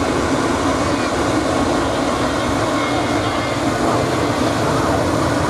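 Jet airliner engines, a loud steady rushing noise without breaks.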